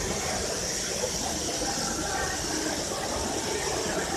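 Steady din of a busy exhibition hall, with indistinct voices in the background.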